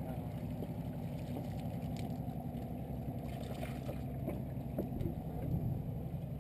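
Steady low motor hum with a few short splashes and knocks as a long-handled scoop dips sardines from the bait pen and dumps them into the boat's bait tank.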